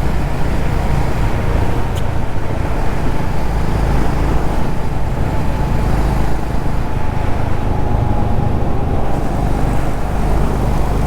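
Honda CB350RS single-cylinder motorcycle cruising at highway speed, heard from the rider's camera: a steady engine rumble under a heavy rush of wind noise.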